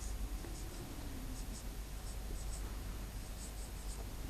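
Felt-tip marker writing on a whiteboard: a series of short, faint, high squeaks and scratches, one for each pen stroke of the handwritten letters.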